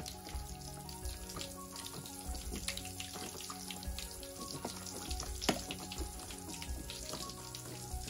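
A metal spoon stirring water in a plastic tub: sloshing with scattered clicks, and a sharper knock about five and a half seconds in, over background music.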